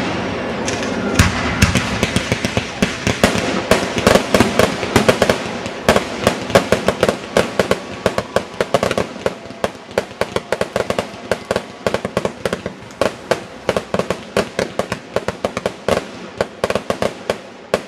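Aerial fireworks going off in a steady barrage of sharp cracks and pops, several a second. A rushing noise fills the first few seconds, then the cracks come as a rapid separate crackle.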